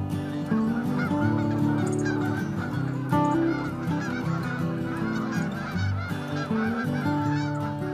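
A flock of geese honking, many short calls overlapping continuously.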